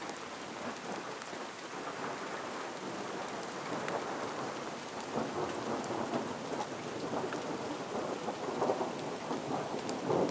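Steady rain falling in a thunderstorm, with scattered raindrops ticking on nearby surfaces.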